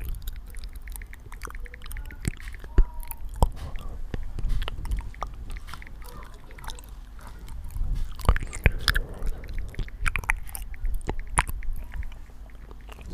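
Silicone Pop It toy handled, its bubbles pressed in, making irregular soft pops and clicks over a low handling rumble.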